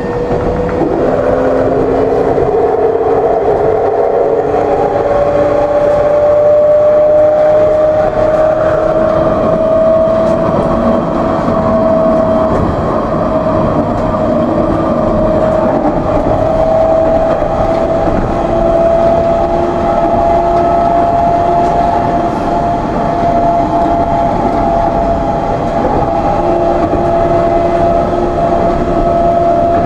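Alstom Citadis tram heard from inside the driver's cab: the electric drive's whine rises in pitch over the first ten seconds or so as the tram gathers speed, then holds steady, over a constant rumble of wheels on rails.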